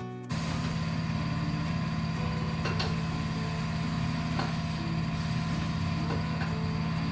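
Electric motor of workshop tyre-fitting equipment starting about a third of a second in and running with a steady low hum, with a few sharp clicks over it.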